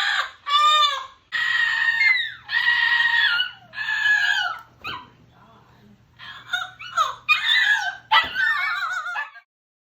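Double yellow-headed amazon parrot calling loudly: a run of about eight long squawks and whoops whose pitch slides up and down, breaking off suddenly near the end.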